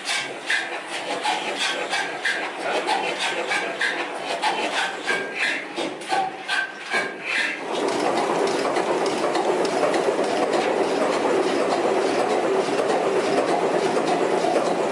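Vintage 1920s Blackstone five-cylinder diesel engine running, with an uneven clatter of knocks at first. About eight seconds in, the sound changes to a denser, steadier mechanical clatter.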